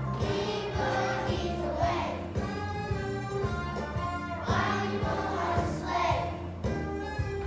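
A children's choir singing a holiday song together over instrumental accompaniment with a steady bass line and beat.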